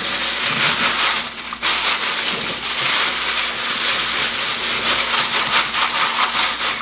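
Tap water running hard into a stainless steel sink, splashing over a plastic bag that is being rinsed and crinkled by gloved hands. The water noise dips briefly about one and a half seconds in.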